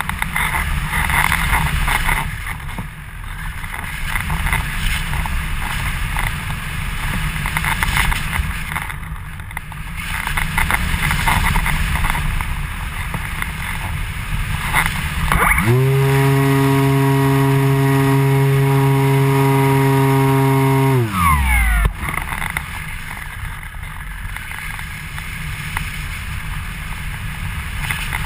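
Wind rushing and buffeting over a motorized model glider's onboard camera in flight. About halfway through, the glider's motor and propeller run at a steady pitch for about six seconds, then cut out and wind down in pitch.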